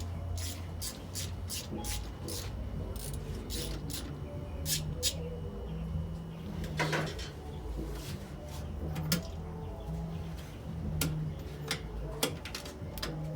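Hand tools and loose metal parts clinking and knocking during an engine teardown, in scattered sharp clicks, over a steady low hum.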